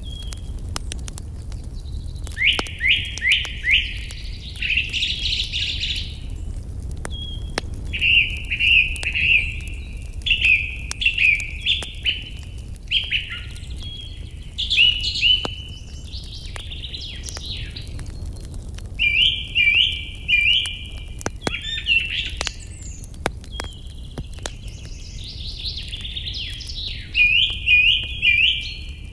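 Songbirds singing in repeated short phrases of quick chirps, with a crackling campfire's scattered pops and a steady low rumble underneath.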